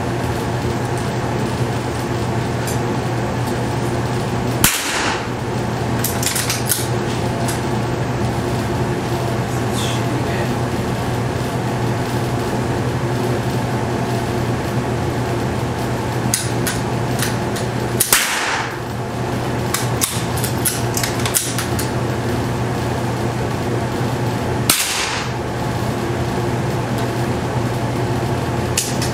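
Three .22 LR rimfire shots from a Tikka T1X bolt-action rifle, about 13 and then 7 seconds apart, each ringing off the concrete walls of an indoor range, with lighter clicks between them, over a steady background hum.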